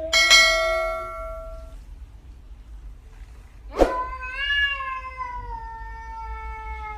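A cat meowing: two long, drawn-out meows, the second lasting about three seconds and slowly falling in pitch. A sharp click comes just as the second meow begins.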